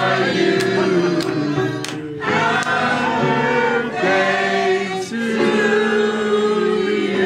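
A roomful of people singing a birthday song together in many voices, holding long notes, with short breaks between phrases about two and five seconds in.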